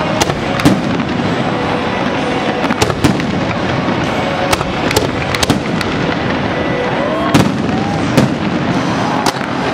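Aerial fireworks display: shells bursting with sharp bangs, one or two a second at irregular intervals, over continuous crackling. The loudest bangs come about three seconds in and again about seven and eight seconds in.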